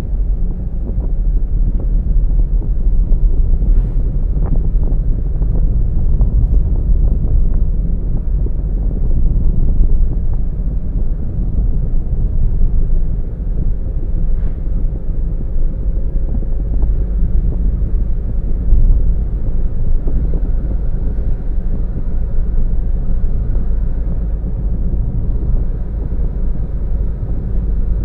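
Car driving along a road: a steady low rumble of tyre, engine and wind noise, with a few faint ticks.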